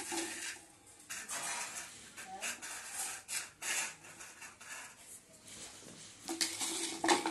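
A small hard container being pushed and knocked across a tiled floor by a husky puppy, scraping and clattering with several sharp knocks.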